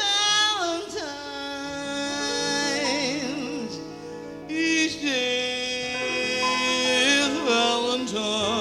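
Female jazz singer holding long notes with wide vibrato and sliding pitch, over a soft piano, bass and drums trio accompaniment, in a live performance taped on cassette.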